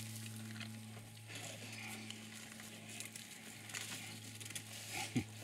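African elephant feeding on dry branches: small twigs crackling and snapping as it strips them with its trunk and chews, with a louder knock near the end, over a steady low hum.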